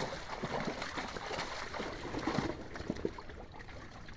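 Pond water splashing and sloshing: many small splashes over a rushing wash of noise that eases after about two and a half seconds.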